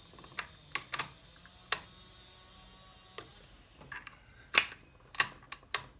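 Sharp metallic clicks, about nine of them at uneven intervals, from a rebuilt Honda B-series five-speed manual transaxle as its shift shaft is worked through the gears on the bench. The loudest clicks come near the end.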